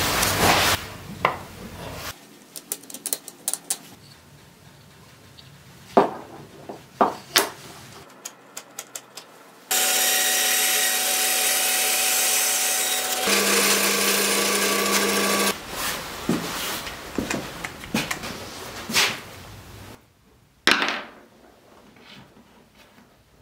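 Small wooden pieces clicking and tapping on a workbench, then a bandsaw running for about six seconds as it cuts a short length of branch, its tone changing partway through. More light taps follow, and one sharp knock near the end.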